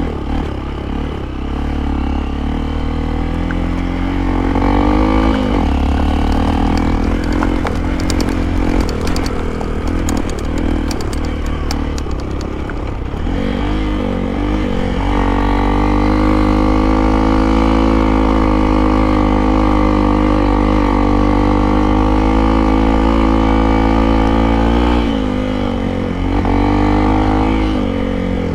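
Hero Impulse motorcycle's single-cylinder engine running while riding, its pitch changing with throttle and gears early on, holding steady for a long stretch in the second half and rising again near the end. Rapid clattering clicks sound over the engine for a few seconds around the middle.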